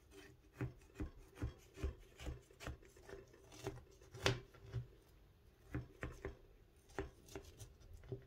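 A knife sawing through the crisp, crumbly streusel topping of an apple crumble cake, with a dry crunching rasp on each stroke, about two strokes a second and a short pause about five seconds in.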